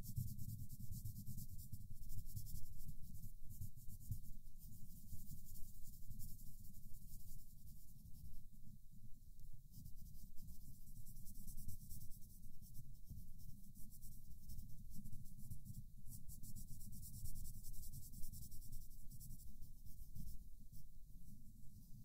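Colored pencil scratching on paper in continuous quick back-and-forth shading strokes, close-miked, with a dull low undertone beneath the scratchy texture.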